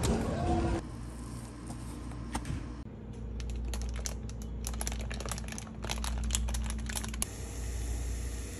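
Plastic food packaging crinkling and clicking as it is handled on a kitchen counter: a quick run of light clicks lasting a few seconds, over a low room hum.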